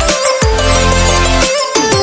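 Electronic background music with a heavy bass line and stepped synth notes; the bass drops out briefly about one and a half seconds in, with falling sweeps around it.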